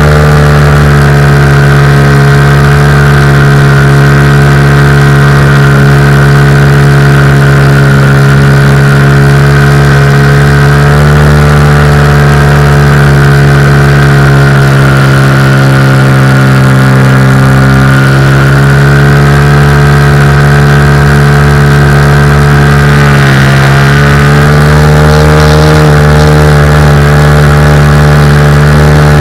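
Cougar 2000 radio-controlled model aircraft's motor running continuously at high power, loud and close, its pitch dipping and recovering a few times as the throttle or airspeed changes.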